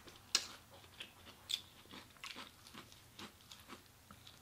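Close-up eating sounds: bites and crunchy chewing of chicken wings and celery, with scattered small crackles and two sharper crunches, one about a third of a second in and one about a second and a half in.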